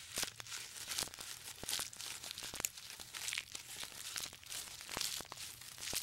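Quiet, irregular crackling and rustling: many small snaps and crinkles, like leaves or twigs being torn and crunched.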